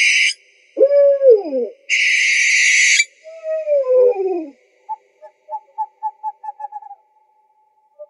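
Owl calls: harsh hissing screeches about a second long alternate with falling pitched cries, then a quick run of short notes.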